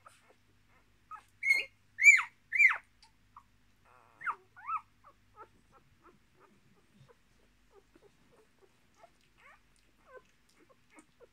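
Newborn Miniature Australian Shepherd puppies squealing: three loud high-pitched squeals in quick succession about a second and a half in, two softer squeaks a couple of seconds later, then only faint small squeaks.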